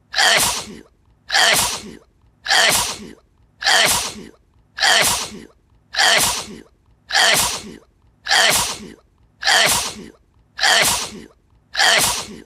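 A single sneeze looped over and over, one sneeze about every 1.2 seconds, each a sharp burst that trails off.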